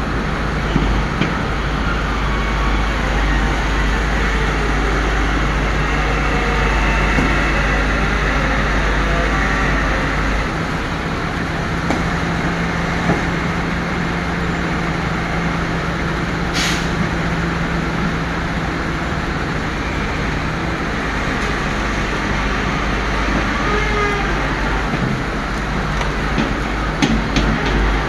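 Backhoe engine running steadily, its note changing about ten seconds in. There is a brief hiss about two-thirds of the way through and a few clicks near the end.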